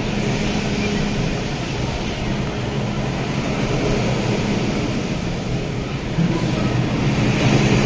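MTR M-Train electric metro train running through a station, heard from inside a passenger car: continuous running noise with a steady low motor hum.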